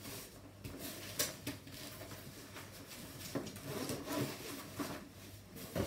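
Fabric storm cover of a Bugaboo Donkey 3 bassinet being laid over the carrycot and fitted by hand: soft rubbing and rustling of the textile, with a few light ticks.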